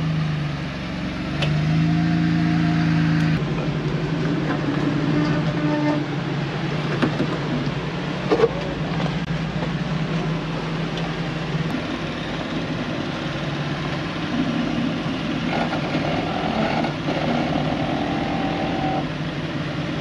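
Rock-crawling off-road vehicles' engines revving in bursts as they crawl up a steep slickrock ledge: first a Jeep Wrangler, then a yellow Chevrolet Corvair wagon-bodied rock crawler. There is a sharp clank about eight seconds in, and the revs rise again for several seconds near the end.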